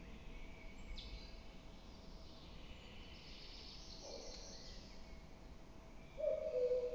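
Common cuckoo calling its two-note 'cuck-oo' near the end, a higher note falling to a lower one. Small birds sing faintly behind it.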